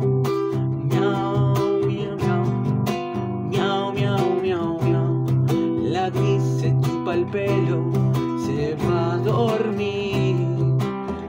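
Classical guitar strummed, playing chords in a steady rhythm.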